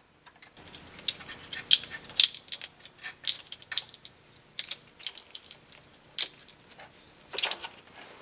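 Irregular clicks, crackles and rattles of a wire being worked into black corrugated plastic wiring conduit and pressed against a car's sheet-metal floor by hand.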